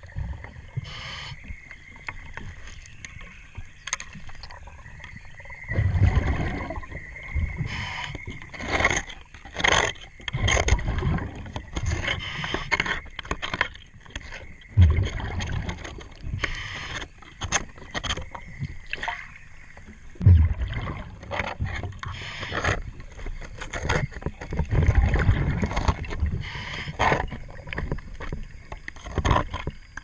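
Underwater sound of a scuba diver at work: exhaled bubbles rumble out every four or five seconds. Between them come short scraping and knocking sounds of gloved hands and a cleaning tool working over the fouled boat bottom.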